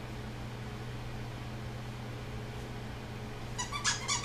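Quiet room hum, then near the end a quick run of short, high whimpers from a 3-month-old Weimaraner puppy holding a sit-stay.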